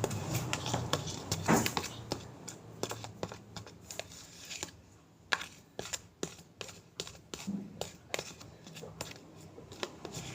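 Irregular small clicks, taps and rustling of objects being handled, with a dozen or more sharp ticks scattered unevenly through it.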